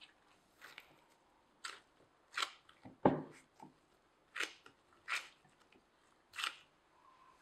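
Hands in thin plastic gloves kneading a soft gluten-free dough in a ceramic bowl. It comes as a series of short pressing and rustling sounds, about one every second, with one heavier knock about three seconds in.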